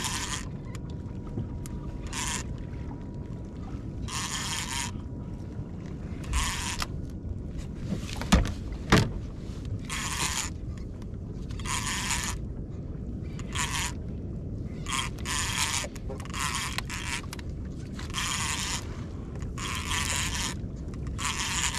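Conventional fishing reel cranked in repeated short bursts, a whirring each time the line is reeled in against a fish on the bent rod, over a steady low rumble, with two sharp knocks near the middle.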